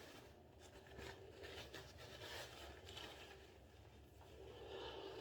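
Near silence with faint, irregular rustling and rubbing.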